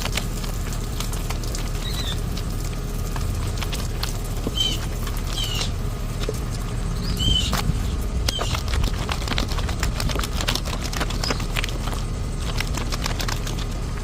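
Wet baby clothes being soaped up and scrubbed by hand, with a steady patter of small wet slaps and clicks over a constant low rumble. A few short high chirps come through now and then.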